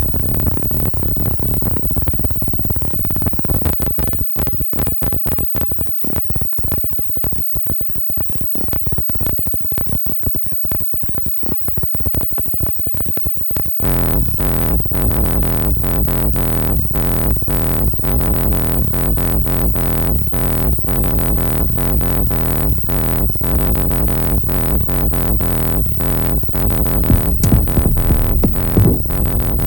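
Electronic music played on hardware synthesizers and grooveboxes: a choppy, fast-pulsing synth pattern, joined about halfway through by a fuller, denser mix with heavy bass.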